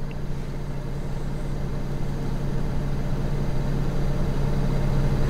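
Steady low hum of a Honda Civic's engine idling, heard inside the parked car's cabin under a faint hiss, slowly growing louder.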